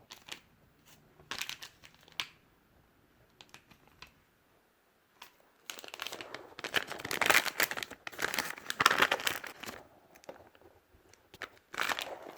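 Crinkly snack packaging rustling as it is handled: scattered light crackles at first, then a longer, louder spell of crinkling about halfway through and a short one near the end.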